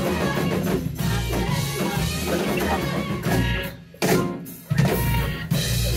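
Live rock band playing with grand piano, electric bass and drum kit. About four seconds in, the music drops out twice briefly, each break cut off by a loud full-band hit, then the band plays on.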